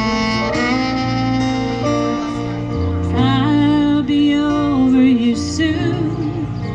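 Live band music played through a PA: acoustic guitars, fiddle and keyboard, with a wavering melody line over the steady accompaniment.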